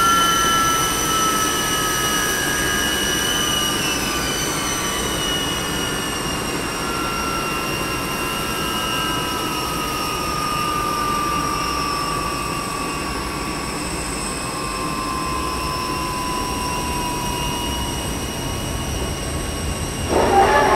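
Boeing 747-400F's Pratt & Whitney PW4000 turbofans whining over a low rumble, the whine slowly falling in pitch and the sound fading as the engines wind down at the stand. A short, loud squeal comes near the end.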